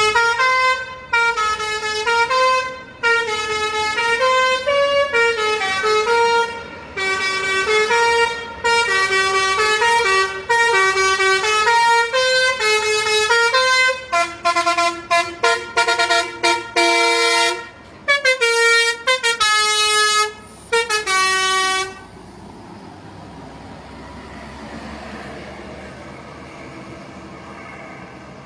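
Basuri telolet bus horn, a multi-tone musical horn, playing a melody of stepped notes, with a run of quick short toots partway through. It stops a little over three-quarters of the way in, leaving a steady, quieter noise.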